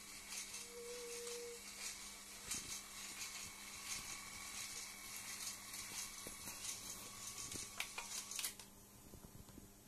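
Small electric train motor in a LEGO locomotive whirring steadily as it circles a loop of plastic track, with frequent light clicks; the whirr drops away sharply near the end.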